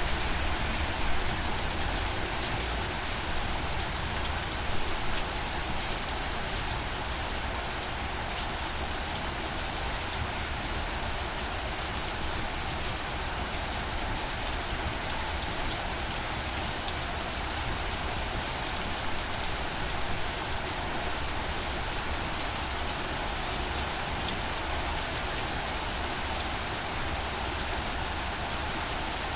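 Steady rain falling, a dense even hiss of many drops hitting a surface, with a low rumble underneath.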